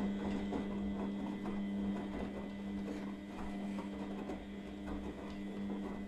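Grundig front-loading washing machine running its main wash: a steady motor hum with irregular soft knocks and clicks as the drum tumbles the laundry.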